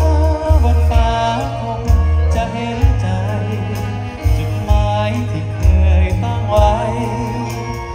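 Live band music played loud through a stage PA, with a singer's melody over a heavy pulsing bass and drum beat.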